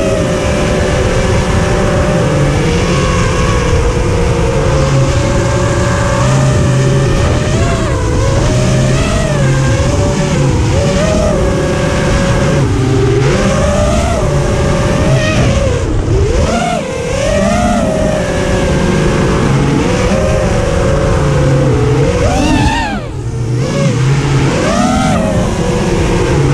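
Freestyle FPV racing quad's motors and propellers, recorded on its onboard GoPro, whining steadily, the pitch swooping up and down with the throttle through the turns. Near the end the pitch briefly drops away, then climbs sharply again.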